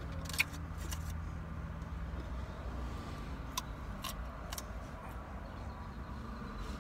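Steady low rumble of a car idling, heard from inside the cabin. A few short crunches of a carrot stick being bitten and chewed come about half a second in and again around the middle.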